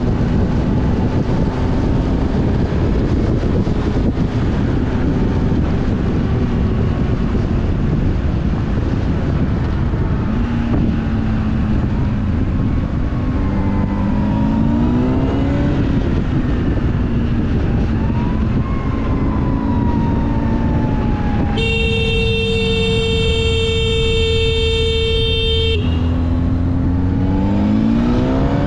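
Motorcycle riding through traffic, its engine running under steady wind noise and rising in pitch several times as it accelerates. About three-quarters of the way through, a vehicle horn blows steadily for about four seconds, then stops suddenly.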